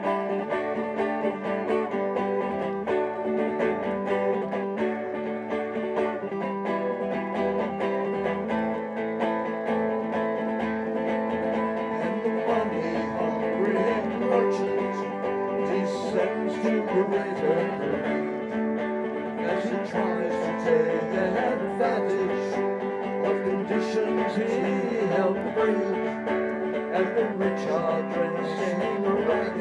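Live acoustic guitar music, plucked and strummed, in an instrumental passage at a steady level.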